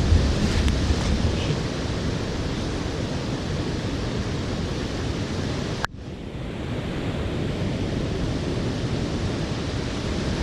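Shallow floodwater rushing over a leaf-covered trail, heard from right at the water's surface as a steady rushing noise. It cuts out sharply for a moment about six seconds in, then resumes.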